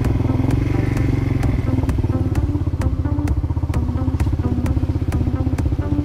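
Quad bike (ATV) engine running steadily at low speed while being ridden, with sharp rattling clicks about two to three times a second.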